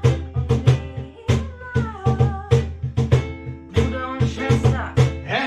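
A ukulele strummed in a steady rhythm while a woman sings, with a low beat underneath.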